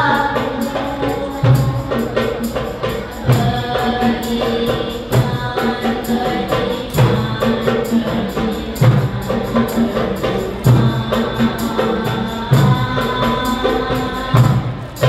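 A girls' nasyid group singing together into microphones, over a steady percussion beat.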